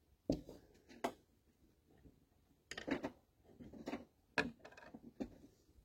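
Kitchenware being handled: a few scattered knocks and clatters, most likely a bowl being fetched and set down.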